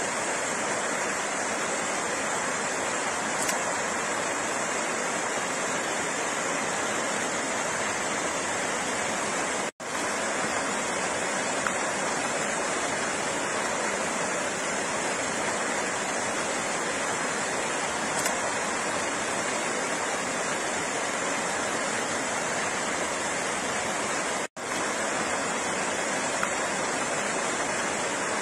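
Flowing water: a steady, even rush with no tones or rhythm. It drops out for a split second twice, about ten seconds in and again about twenty-five seconds in.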